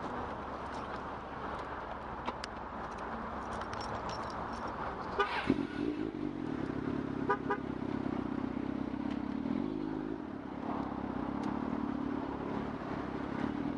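Car and road traffic noise. A brief clatter of sharp knocks comes about five seconds in, followed by a long, steady car horn.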